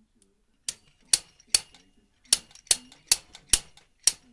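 Slide hammer being struck repeatedly to pull a propeller-shaft seal from a Yamaha outboard's lower unit, its locking pliers gripping screws driven into the seal: eight sharp metal clanks, about two a second, each with a brief ring.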